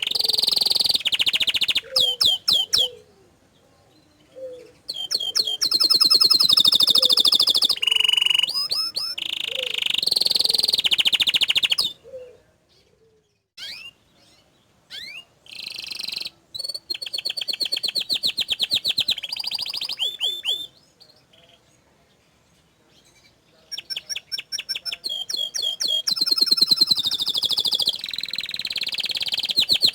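Domestic canary singing in long phrases of fast rolling trills and rapidly repeated high notes. The phrases are broken by pauses of a second or more, at about 3, 12 and 21 seconds in.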